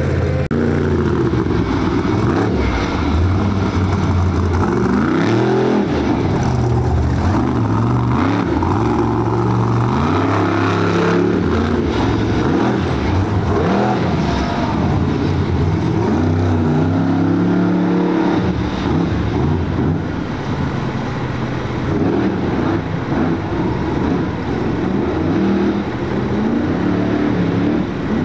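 Monster truck engine revving hard over and over, its pitch climbing and dropping again every few seconds. It is a little quieter in the last third.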